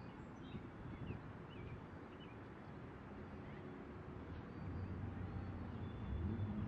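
Faint outdoor ambience: a few small bird chirps early on, then a low engine rumble of passing traffic that grows louder in the last two seconds.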